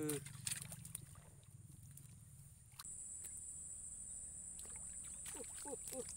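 Faint splashing and trickling of shallow swamp water as a hooked snakeskin gourami thrashes at the surface. A steady high whine comes in about three seconds in, and a quick run of short chirps comes near the end.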